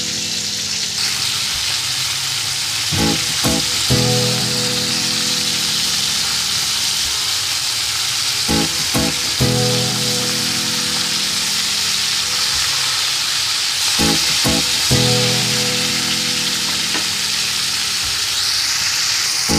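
Pomfret pieces marinated in salt and turmeric sizzling steadily as they fry in hot mustard oil: the light first fry before the gravy is made. A short looping background-music phrase recurs about every five and a half seconds over the sizzle.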